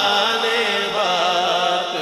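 A man's voice singing a naat unaccompanied: one long held line whose pitch wavers and turns in slow ornaments, without breaking into separate words.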